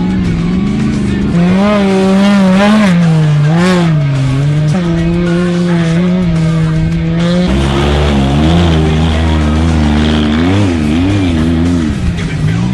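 Off-road race vehicle engine revving hard, its pitch swinging up and down quickly over and over, mixed with background music.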